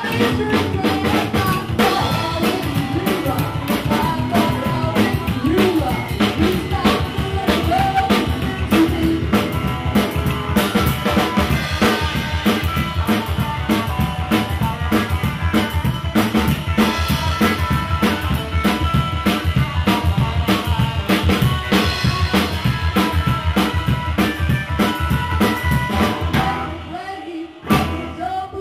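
Live band playing a drum-driven passage: drum kit with snare, rimshots and bass drum keeping a fast steady beat, with upright double bass and electric guitar. The playing drops away briefly near the end.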